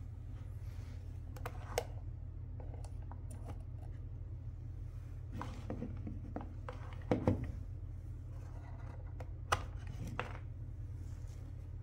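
Cables and a plastic plug-in power adapter being handled, with a few sharp clicks and one duller thud as the adapter's DC plug is worked out of the ECU programmer. A steady low hum runs underneath.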